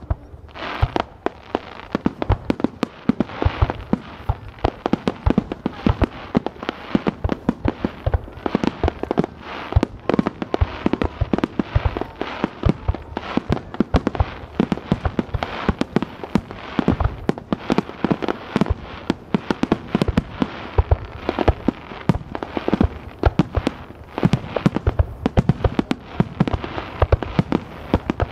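Fireworks display: a rapid barrage of aerial shells launching and bursting, with sharp bangs several times a second over a steady wash of noise.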